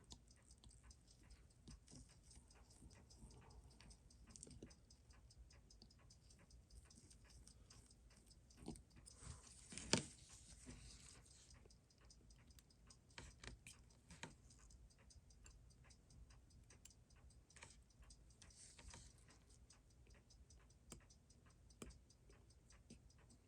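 Faint, irregular small clicks and taps of watchmaker's tools and tiny parts during disassembly of a Seiko 6139 chronograph movement, with a louder click about ten seconds in.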